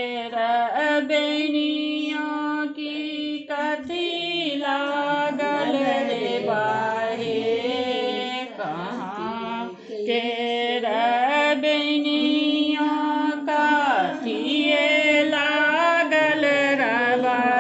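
A voice singing a slow, ornamented melody in long held notes that waver and slide between pitches, in phrases broken by short pauses.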